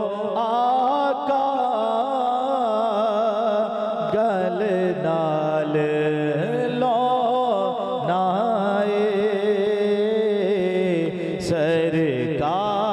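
Male naat reciter singing a Punjabi devotional naat into a microphone in long, drawn-out wavering notes, over a steady low drone.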